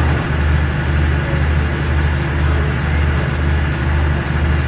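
Alsthom diesel-electric locomotive idling at a standstill: a steady low engine hum that throbs about one and a half times a second.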